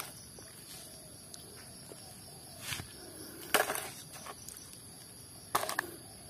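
Muddy plastic toys knocking and clattering as they are dropped into a plastic mesh basket: three short bouts of knocks, the loudest about halfway through.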